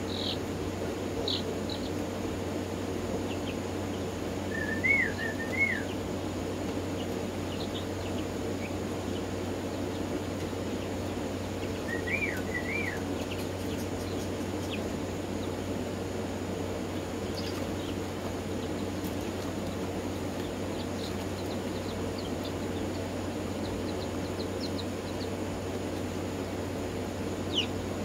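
Chickens chirping and peeping now and then over a steady low hum, with two short warbling calls and a quick run of high peeps near the end.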